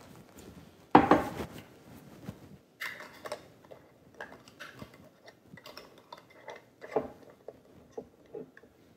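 Metal screw lids being twisted down onto hot glass canning jars: scattered clinks and light scraping of metal on glass, with a sharp knock about a second in.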